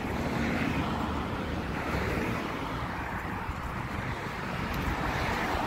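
Steady rush of road traffic, with wind blowing across the phone's microphone.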